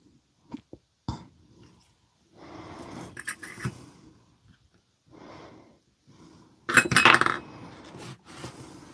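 Small metal chuck parts on a Hilti SID 4-A22 impact driver clicking and scraping as they are worked into place by hand with a steel pick. A few sharp clicks come in the first second or so, and the loudest burst of scraping and clinking comes about seven seconds in.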